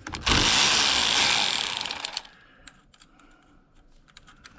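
Ratchet wrench clicking rapidly for about two seconds as a battery terminal nut is worked loose, followed by a few light metal clicks.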